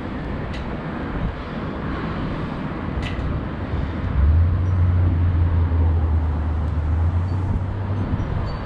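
Steady outdoor background noise, joined about four seconds in by a low engine-like rumble that holds for a few seconds, with a couple of faint ticks before it.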